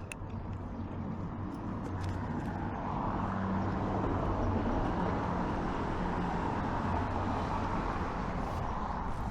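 Motor vehicle engine running close by, a steady low hum with road noise that grows louder a few seconds in and then holds.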